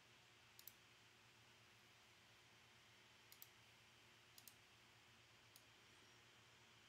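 Near silence with faint, sharp clicks, three quick pairs and a single one, spread across a few seconds.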